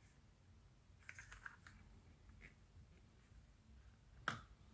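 Faint clicks and scrapes of a plastic opening pick worked between an iPhone 7 Plus's glued screen and its frame, prying the screen free of its clips, with one sharper click near the end.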